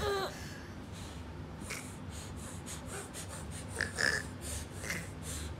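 A baby's brief high cry right at the start, then a few short breathy huffs and gasps as he plays, over a steady low hum.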